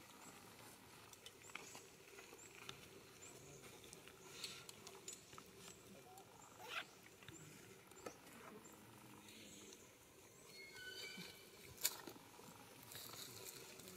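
Faint outdoor forest ambience with scattered small taps and clicks and a sharper click about twelve seconds in, over faint high chirps.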